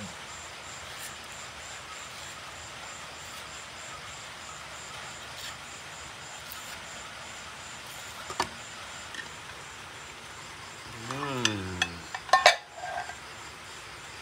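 Insects chirping high in steady, evenly spaced pulses, about three a second, over a constant background hiss. Near the end a short falling voice-like sound is followed by a few sharp knocks, the loudest sounds here.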